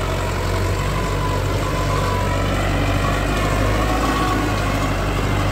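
YTO 604 four-wheel-drive tractor's 60-horsepower diesel engine running steadily under heavy load, pulling a deep three-tine plough through the soil.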